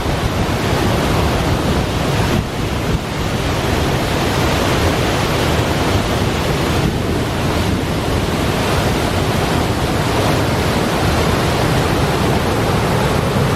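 Steady loud rush of the River Tees pouring over its falls and rapids, an even roar of water with no let-up.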